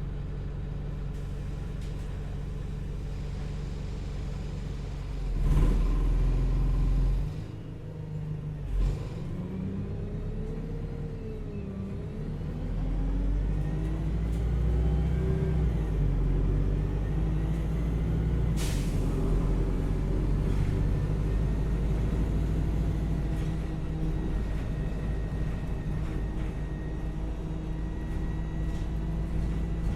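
Bus engine idling, rising briefly in a loud swell about five seconds in. The bus then pulls away with its engine pitch climbing through gear changes and settles into steady running, with a short air-brake hiss about two-thirds of the way through.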